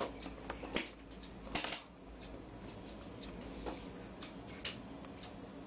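Handling noise: scattered light clicks and rustles from a hand gripping a phone close to the microphone, over a steady low hum.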